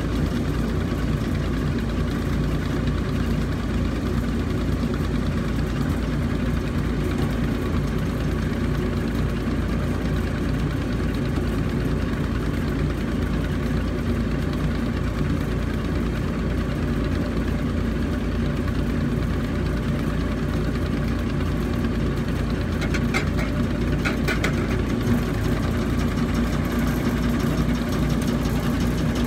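Engine of a water-well boring rig running steadily, driving the rig through V-belts, with an even low hum. A few short metallic clicks come about three-quarters of the way through.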